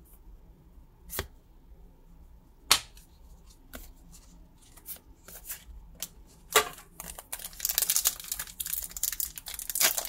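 Pokémon trading cards handled and flicked through by hand, with a few sharp snaps. From about seven seconds, a foil booster pack wrapper crinkles as it is torn open.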